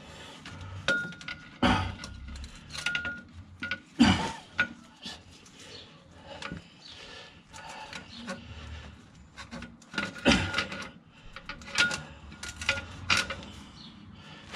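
Irregular metallic clinks, knocks and rubbing as a clutch pressure plate is shifted by hand against the flywheel while it is lined up on the alignment tool. The loudest knocks come about 4 seconds in and about 10 seconds in.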